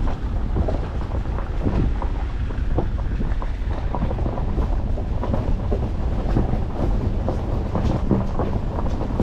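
4x4 driving slowly over a rough, unsurfaced track: a steady low rumble of the running gear, with frequent knocks and rattles from stones under the tyres and the suspension working, and wind buffeting the microphone.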